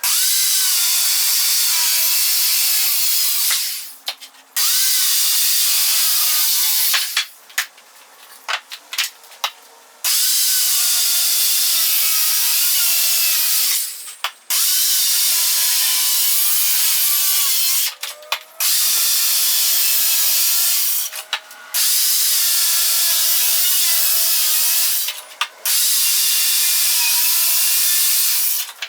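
Power saw cutting wood stair stringers, in repeated runs of a few seconds with short pauses and small knocks between cuts.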